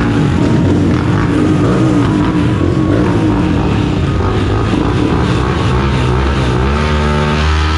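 ATV engine running under load, loud and continuous, with music starting to come through near the end.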